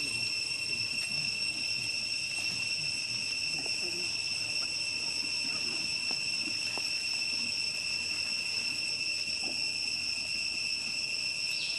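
Steady, high-pitched drone of insects singing, unbroken throughout, with faint scuffling and leaf rustle underneath from young macaques wrestling on stone.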